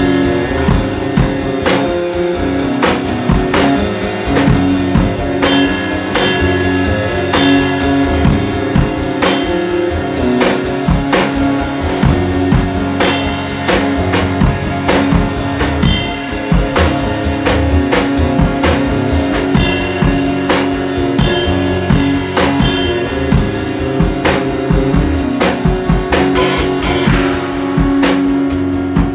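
A guitar jam over a steady drum-kit beat, with the guitar playing sustained notes against regular drum hits and a cymbal crash near the end.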